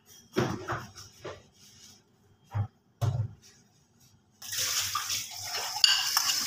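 Metal spoon scraping and stirring dry ground spices on a ceramic plate, starting about four seconds in and going on steadily. A few brief, faint sounds come before it.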